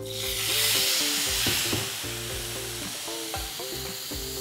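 Water poured into a pan of hot butter and spices, hitting the hot fat with a sudden loud sizzle that eases off gradually over the next few seconds.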